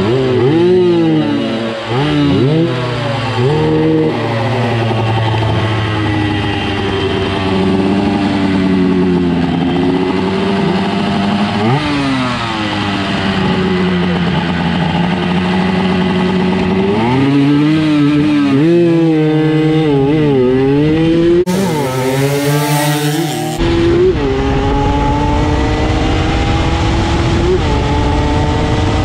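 Motorcycle engine accelerating hard through the gears, its pitch climbing and dropping back at each shift, with wind rumble on the microphone. Near the end it makes one long, slow climb in a high gear.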